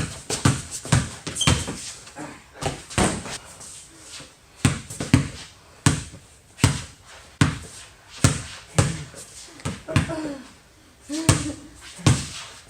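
A run of dull thumps at an uneven pace, about one or two a second, each dying away quickly.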